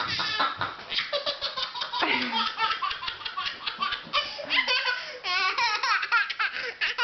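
Baby laughing hard in repeated, choppy belly laughs.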